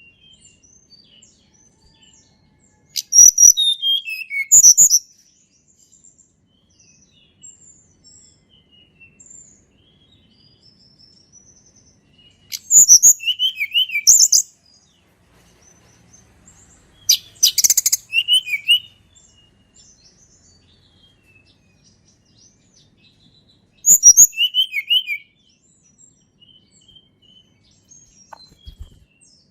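Sunda blue robin (tledekan gunung) singing four short, loud song phrases several seconds apart. Each phrase opens with high notes and ends with notes sliding downward, with faint soft chirps in between.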